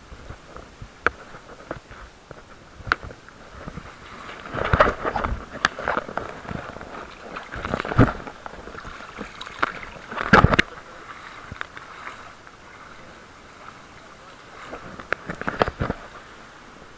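Handling noise on a carried action camera: irregular clicks, knocks and rubbing as it is moved over rough coral rock, with heavier thumps about five, eight and ten seconds in and again near the end. A faint steady wash of sea water runs underneath.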